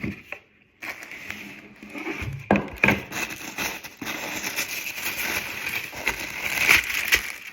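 Tissue paper rustling and crinkling as shoes are unwrapped from their box, with a couple of sharper clicks between two and three seconds in.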